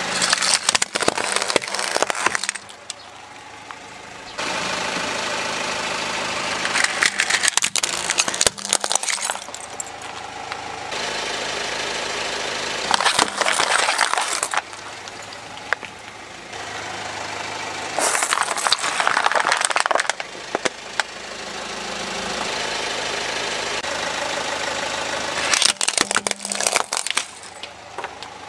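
A car tyre rolling slowly over plastic toys and plastic drink bottles full of water beads, crushing them in about five separate bursts of cracking and snapping. Between the crushes the car's engine runs steadily.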